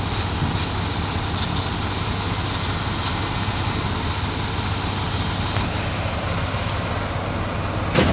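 An engine running steadily with a low, even hum, and one sharp knock near the end.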